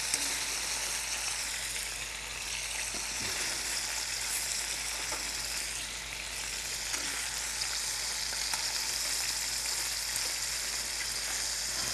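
Prosciutto-wrapped beef rolls frying in oil in a stainless steel skillet, a steady sizzle.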